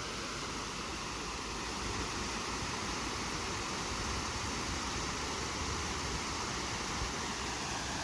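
Steady rush of flowing water, a stream or river running without a break.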